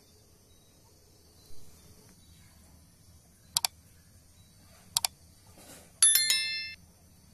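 Subscribe-button overlay sound effects: two quick double mouse clicks about a second and a half apart, a short swish, then a bright bell chime ringing for under a second, over a faint steady chorus of insects.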